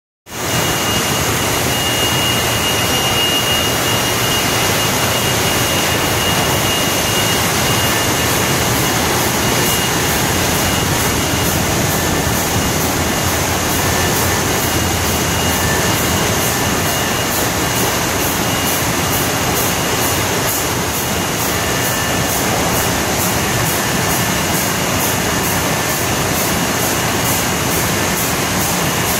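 US Bottlers PF-24 bottle filler running, a steady loud rushing noise with a thin high whine. From about nine seconds in, a fast, even ticking joins it.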